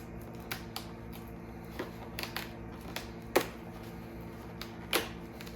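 A handful of light clicks and taps from opening the cardboard door of a hot sauce advent calendar and handling the small sauce bottle inside, the loudest a little past halfway. A steady low hum runs underneath.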